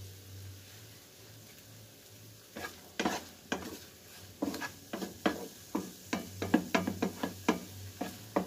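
A spatula scraping and tapping against a granite-coated nonstick frying pan as scrambled egg is chopped and stirred: short strokes about two or three a second, starting about two and a half seconds in and growing busier.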